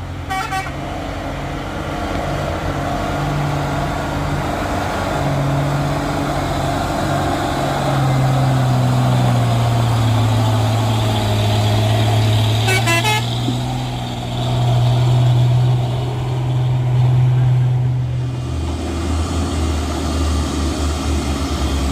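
Heavy truck's diesel engine pulling on a steep climb, its pitch shifting up and down, with brief horn toots near the start and again about thirteen seconds in.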